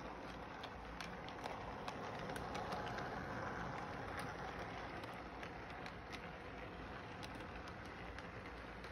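Model train cars rolling along the track: a steady rumble with scattered clicks.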